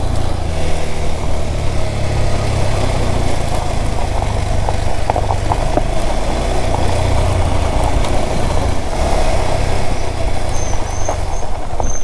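Single-cylinder engine of a KTM 390 Adventure motorcycle running steadily at low road speed, with a constant low rumble, heard from on the bike.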